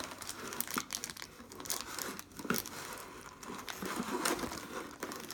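Wrapped trading-card packs crinkling and rustling as a handful is pulled out of a cardboard gravity feed box, with many irregular small crackles.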